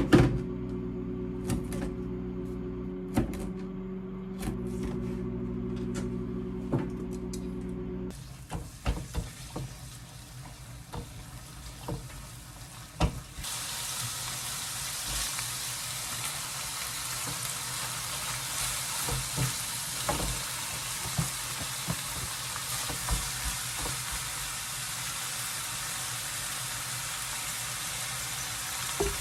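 Food frying in a pan: a steady sizzle starts about thirteen seconds in and runs on. Before that, background music plays for about the first eight seconds, followed by a quieter stretch of kitchen clicks and knocks.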